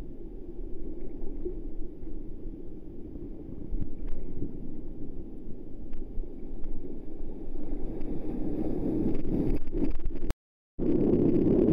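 Sea water sloshing and churning around a camera at the surface of the surf, a dull, low rush that grows louder toward the end as breaking white water washes over it. The sound cuts out for a split second just before the loudest part.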